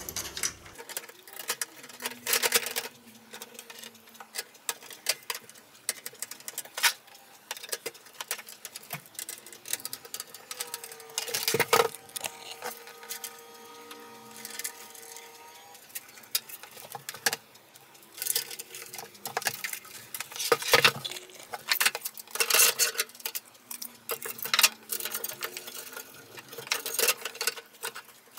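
Irregular clicks, taps and rattles of PC case fans being screwed in with a screwdriver and fitted by hand into a metal computer case. A steady tone with several overtones sounds for about five seconds in the middle.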